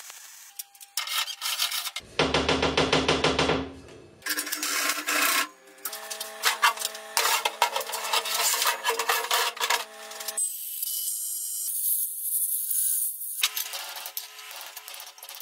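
Metal-fabrication sounds in quick succession: a MIG welder's arc buzzing and crackling, then clanks, scraping and tapping on steel parts.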